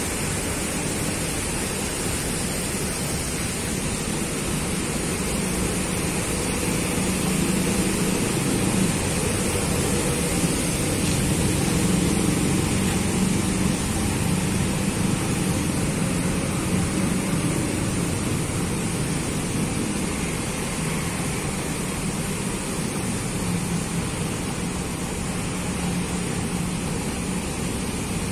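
Coach bus's diesel engine idling close by, a steady rumble under an even hiss. It swells slightly about eight to fourteen seconds in.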